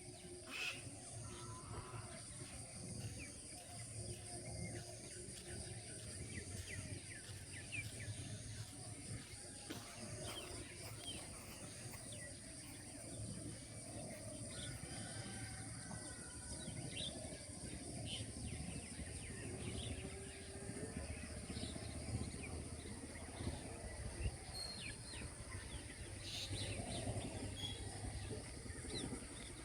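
Outdoor ambience: birds chirping now and then over a low, steady rumble of background noise, with a constant high-pitched whine throughout.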